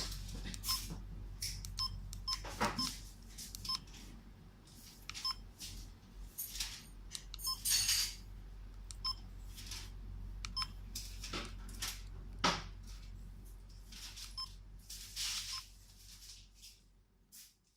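U855 dash camera giving short electronic beeps at irregular intervals as its buttons are pressed to work through the settings, with rustling handling noise in between.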